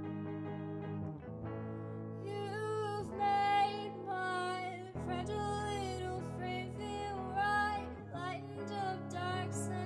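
Background song: a singer over steady instrumental chords.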